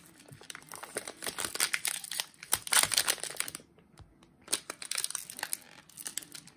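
Foil wrapper of a Panini Illusions trading-card pack crinkling and tearing as it is torn open by hand, with a brief pause about halfway through.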